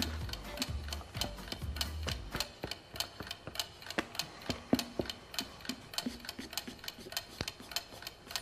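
Clock ticking quickly and steadily: a waiting sound effect.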